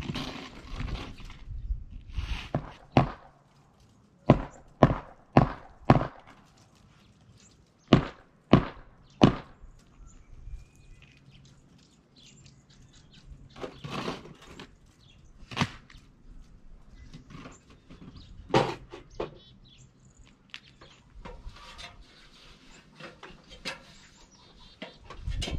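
An uneven series of sharp knocks and thuds, some coming in quick runs of three or four about half a second apart, with quieter gaps between.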